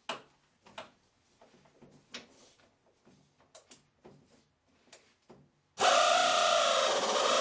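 Scattered metal clicks and knocks of hand tools working the bumper fasteners under the car. Then, near the end, a power tool starts loudly and runs steadily, its pitch dipping and recovering as it works.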